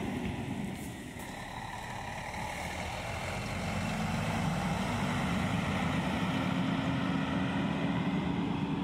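Diesel engine of a Busscar double-decker coach running as it pulls away past the camera, a low steady drone that dips briefly and then grows louder over several seconds.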